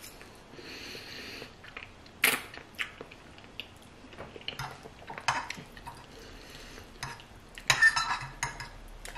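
Metal fork clinking and scraping against a ceramic plate as spaghetti is twirled and eaten, in scattered sharp clinks, the loudest about two seconds in and a quick cluster near the end. About half a second in there is a short hissing slurp of noodles.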